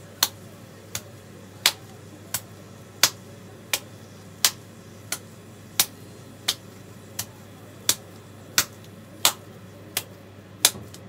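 A patty of raw ground beef and pork slapped from palm to palm, about one and a half sharp slaps a second, alternately louder and softer.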